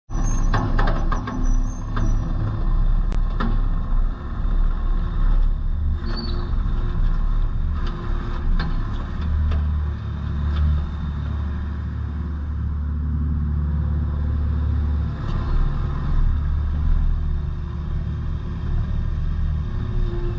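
Kubota KX61-3 mini excavator's diesel engine running steadily, with scattered metallic knocks and clanks over the first several seconds.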